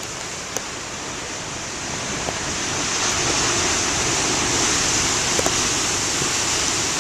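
Heavy storm surf from a nor'easter, a big wave breaking and rushing in. The noise swells about two seconds in and stays loud.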